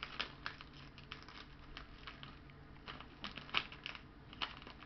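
Shiny foil gift-wrap crinkling in short, scattered crackles as a dog noses and nibbles at the wrapped present.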